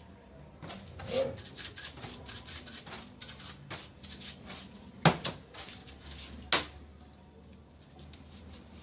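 Small metal parts and tools clinking and rattling as a pressure-washer pump is taken apart by hand, with two sharper, louder metal knocks in the second half.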